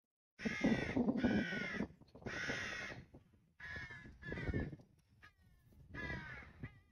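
A bird calling, six loud calls of about half a second each, three close together at the start and the rest more spaced out.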